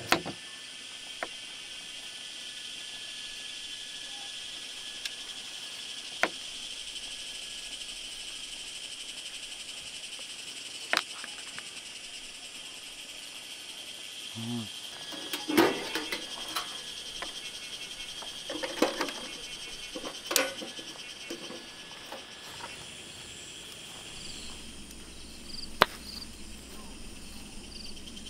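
Steady high trilling of an insect chorus, with scattered sharp clicks and knocks of a knife, a cutting board and mugs being handled on a table, busiest around the middle. A run of quick high chirps comes in near the end.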